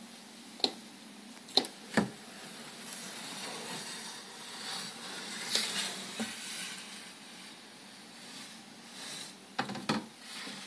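Handling noise from a handheld camera: a few sharp taps and knocks in the first two seconds and again near the end, with rustling around the middle, over a faint steady hiss.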